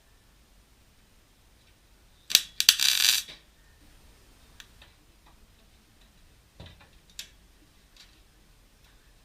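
A welder tacking the sheet-steel repair panel: one crackling burst about a second long, about two seconds in, followed by a few faint clicks.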